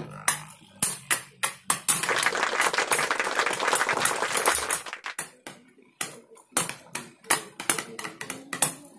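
Two metal Beyblade spinning tops clattering against each other and the sides of a plastic basin. A dense, fast rattle of clicks builds from about two seconds in and lasts about three seconds, then thins to scattered knocks.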